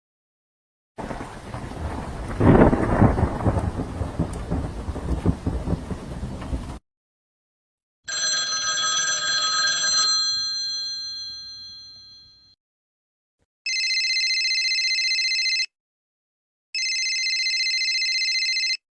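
A run of sound effects: a thunderclap over rain, a chime ringing and fading, then a telephone bell ringing twice, each ring about two seconds long.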